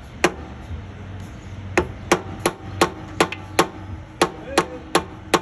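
Hammer striking a truck's brake slack adjuster in sharp, ringing metal-on-metal blows: one strike, a pause, then a quick run of about three strikes a second. The blows are breaking the seal of the old, torn slack adjuster grease boot to pop it out.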